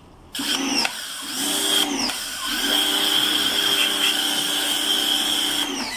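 Electric pressure washer motor whining up to speed and running, with the hiss of foam spraying from its foam-bottle nozzle onto the radiator. The whine dips briefly about one and two seconds in, holds steady, then winds down near the end as the spraying stops.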